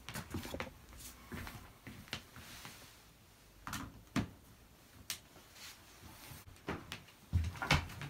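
Irregular light knocks, clicks and rustles of handling in a small room, loudest in a cluster near the end. The vacuum cleaner is not running, as it has not been plugged in.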